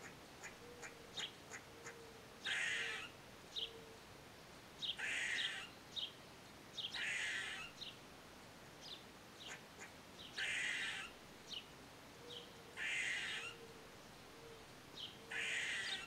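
Gray squirrel giving its harsh, buzzy alarm calls: about six drawn-out rasping calls, two to three seconds apart, with short sharp chucking notes between them.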